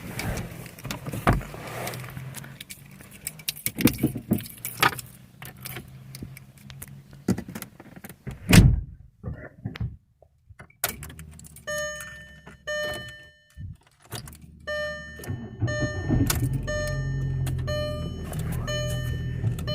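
Knocks and a loud thump, then a Volkswagen Jetta Mk4's warning chime dinging about once a second. About three-quarters of the way in, the 2.0-litre four-cylinder engine starts and settles into a steady idle under the chime, running on freshly fitted spark plugs and ignition wires that were meant to cure a misfire in cylinders 1 and 3.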